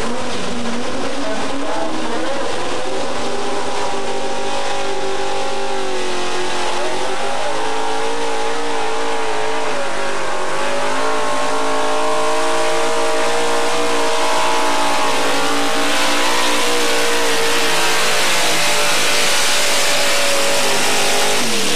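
Ford F-series pro street four-wheel-drive pulling truck pulling a weight-transfer sled at full throttle. The engine runs loud at high revs, its pitch rising and dipping as it works down the track.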